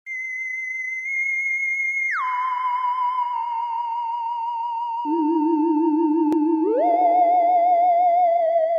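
Electronic music intro of warbling, theremin-like tones with vibrato: a high tone slides down about two seconds in, and a second, lower tone enters about five seconds in and slides up to join it.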